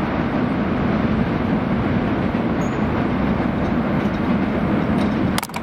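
Long CSX mixed freight train rolling past, a steady rumble of railcar wheels on the rail. It cuts off suddenly with a click near the end.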